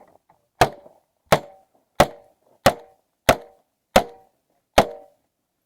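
Uzi Pro 9 mm pistol fired in seven single shots, roughly two-thirds of a second apart, with a slightly longer pause before the last one.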